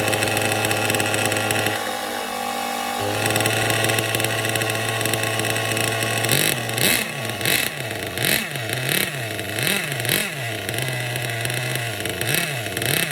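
Small nitro two-stroke engine of an RC buggy running at a steady fast idle, then revved up and down repeatedly from about six seconds in. The owner judges it to be running a little rich.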